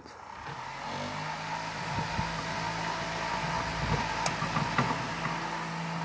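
Two small 12-volt electric fans running, a steady whir with a low motor hum. The whir grows louder over the first couple of seconds as the fans come up to speed, then holds steady.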